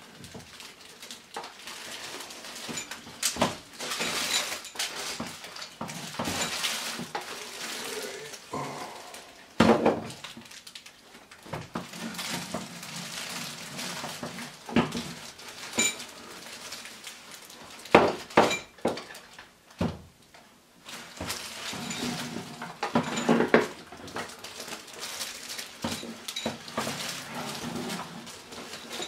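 Things being handled and moved about on a kitchen counter: irregular clatters and knocks, with stretches of rustling.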